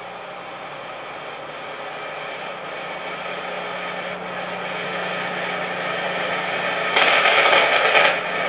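Steady hiss with a low, steady hum underneath, slowly growing louder, with a louder surge of hiss for about a second near the end: the background noise of an old videotape transfer after the soundtrack has ended.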